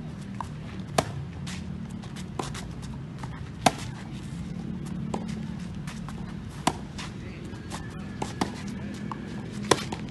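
Tennis racket strikes on the ball during a baseline rally on a clay court: a sharp pop about every three seconds. Quieter ball bounces and distant hits from across the court fall in between.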